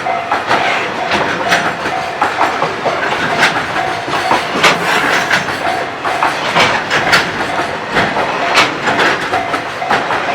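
Freight train rolling past over a level crossing, its wheels clacking rhythmically over the rail joints with a steady rumble. A Japanese level-crossing warning bell rings in short repeated tones throughout.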